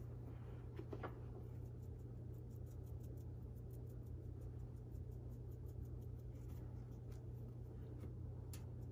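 Faint soft dabbing and rubbing of a makeup sponge on a vinyl doll limb as matte sealer is worked in, over a steady low hum.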